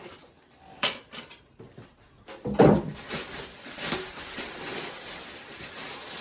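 Unpacking a boxed countertop oven: a few light knocks, a loud thump about two and a half seconds in, then steady rustling and scraping of the box and packing material.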